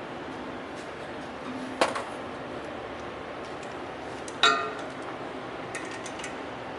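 Two sharp metallic clinks about two and a half seconds apart, the second louder and ringing briefly, then a few light ticks, over a steady shop background hum.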